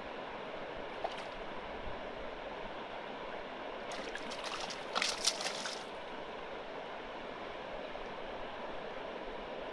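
Shallow river water rushing steadily past a wader's legs. About four seconds in, a hooked fish thrashes at the surface as it is grabbed by hand, a brief run of sharp splashes loudest around the five-second mark.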